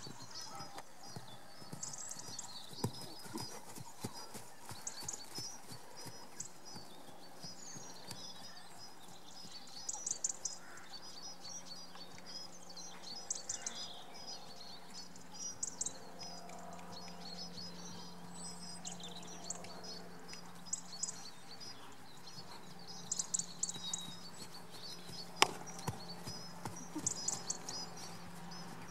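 A horse's hoofbeats on a sand arena surface as it works at trot and canter, with short bursts of high chirping every few seconds and a single sharp click about 25 seconds in.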